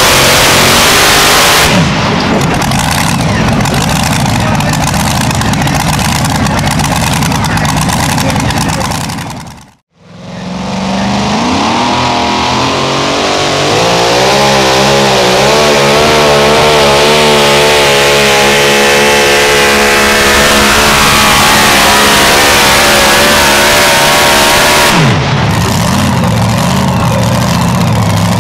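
Supercharged two-wheel-drive pulling-truck engines running at full throttle under load while dragging a weight-transfer sled. The first engine cuts off abruptly about ten seconds in. A second truck's engine then runs wide open with a wavering pitch, and near the end it drops off steeply to a low idle as the pull ends.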